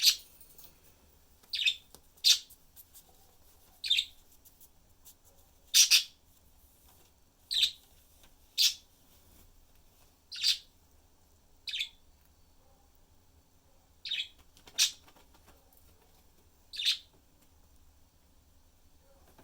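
Pet budgerigars chirping: about a dozen short, high single chirps, one every second or two, falling silent a couple of seconds before the end.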